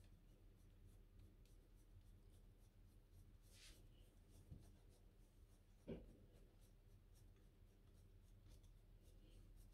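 Faint, repeated scraping of cheese being grated on a flat handheld metal grater, with a soft knock about six seconds in.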